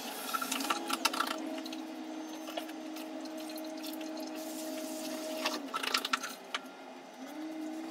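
Kitchen faucet running water over lettuce leaves in a silicone colander, with the wet leaves rustling and squishing as they are handled in clusters of crackles. A steady low hum runs alongside, breaking off past the middle and starting again near the end.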